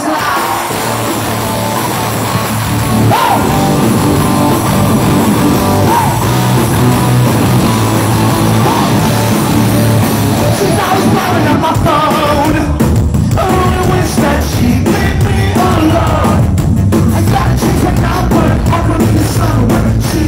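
Rock band playing live in a concert hall, loud: electric guitars, bass and drums with a singer's voice over them.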